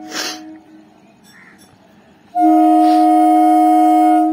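Horn of a BEML electric multiple unit train: a steady two-tone blast trails off in the first half second after a short noisy burst. About two seconds in, a much louder two-tone blast starts, holds steady for about two seconds and cuts off.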